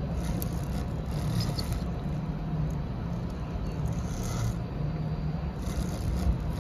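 Clay 3D printer running as it extrudes earthenware clay: a steady low hum with short stretches of higher hiss coming and going.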